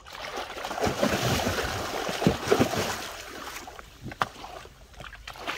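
Water splashing and churning as a cast net is hauled up out of a pond, with fish thrashing in it. The splashing eases off about three and a half seconds in, and a single sharp knock follows.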